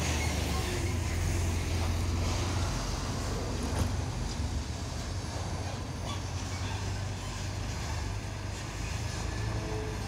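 Steady low rumble of heavy diesel machinery running on a construction site, with a single brief knock about four seconds in.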